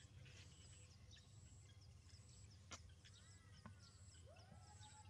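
Near silence with a low steady hum. There is a faint sharp click a little past halfway, and faint calls near the end that rise and then hold a tone.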